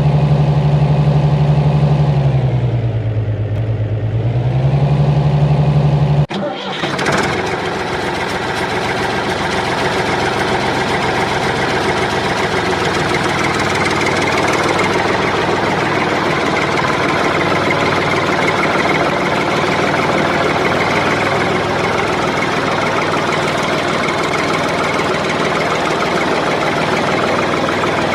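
Engine running with a steady hum; its pitch drops and comes back up about three to four seconds in. Around six seconds in, the sound cuts abruptly to a rougher, noisier engine running steadily.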